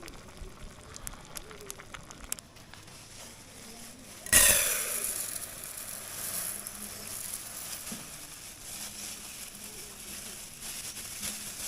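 A pot of rice cooking over a camp fire: light crackling, then about four seconds in a sudden loud hiss that keeps going.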